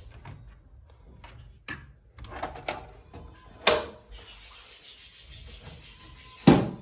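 Plastic clicks, knocks and rubbing from handling an aquarium's filter pipe and plastic lid. A steady hiss runs for about two seconds after the middle, and a sharp knock near the end is the loudest sound.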